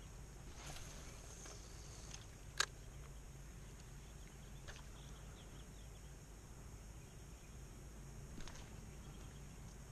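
Quiet outdoor ambience with a steady high insect hum, broken by one sharp click about two and a half seconds in and a couple of fainter ticks later.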